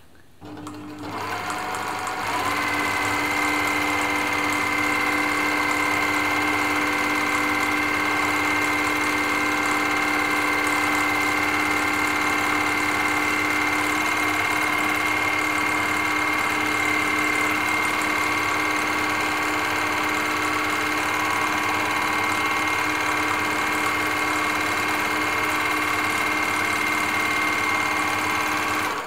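Elna Air Electronic TSP sewing machine stitching straight stitch for free-motion darning, with the darning foot fitted and the feed dogs covered. It speeds up over the first two seconds, runs at a steady speed with a steady motor whine, and cuts off at the end.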